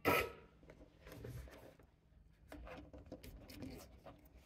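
Faint handling noises as thin wires are tucked away under a decoder on a model-railway turnout: a short rustle at the start, then scattered light clicks and rubbing.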